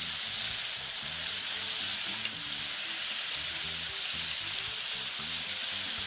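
Chicken pieces deep-frying in hot oil in a cast iron fryer, with a steady, dense sizzle.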